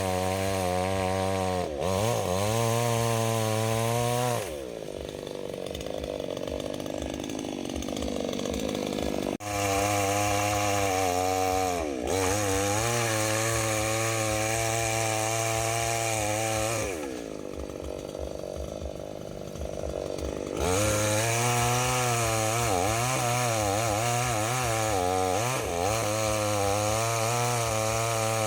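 Two-stroke chainsaw running at high revs, its pitch wavering as the chain works under load. Twice it drops back to a lower idle for a few seconds, then revs up again.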